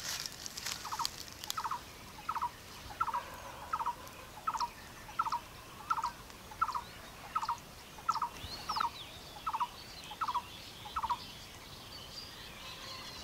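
An animal's short, pulsed call repeated evenly, about fifteen times at roughly one and a half calls a second, stopping near the end. Faint high chirps sound now and then.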